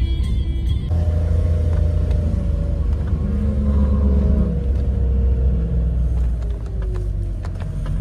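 Steady low rumble of a car driving, heard from inside the cabin, with background music.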